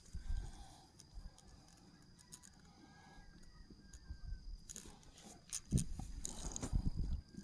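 Rustling and low bumps of a clip-on microphone rubbing against a shirt as the wearer bends and works a person's leg on a massage table, heaviest a little past halfway. A faint steady high tone runs underneath.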